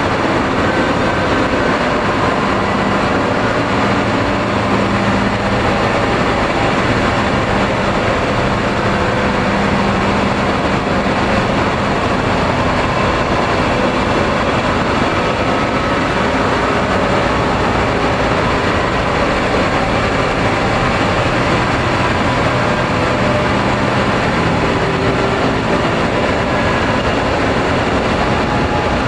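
Dark ambient noise music: a loud, steady wall of rumbling noise with faint held tones drifting underneath, close to the sound of a train or heavy engine.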